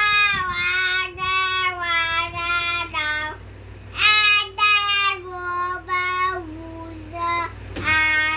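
A young child singing a wordless tune in long held notes, the pitch stepping slowly downward. There are two long phrases with a short break about three seconds in, then one brief note near the end.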